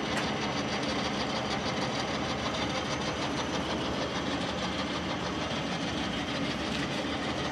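Mecof 40C radial drilling machine running: a steady mechanical whir with a fast, even ticking.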